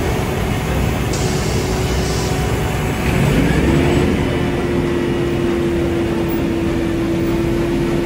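Diesel engines of a dump truck and a Caterpillar asphalt paver running under load. About three seconds in, one engine's pitch climbs and then holds at a higher, steady whine.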